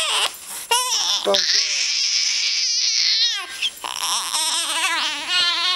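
Young baby crying: a few short cries, then two long, high-pitched, wavering wails with a brief catch of breath between them.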